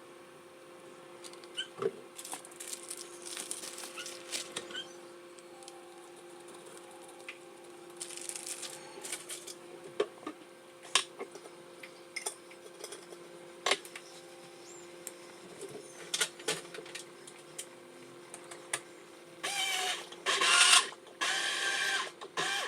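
Kitchen handling sounds: scattered small clicks, taps and knocks over a steady low hum, turning into louder, busier clattering about twenty seconds in.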